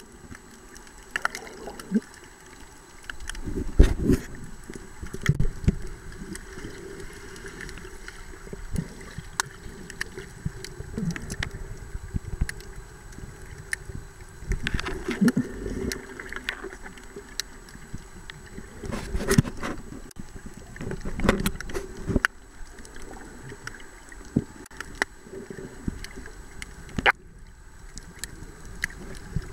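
Muffled water noise picked up by an underwater camera held below the surface while snorkeling: irregular gurgling and sloshing with scattered clicks and low thumps, louder around four, fifteen and nineteen seconds in.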